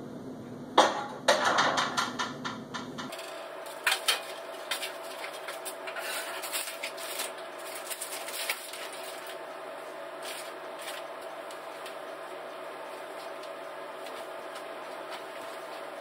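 A metal steamer pot lid clanks about a second in and rattles for a couple of seconds. Then come scattered light knocks and crinkling as foil-wrapped bundles are lifted out of the steamer, dying away around halfway through.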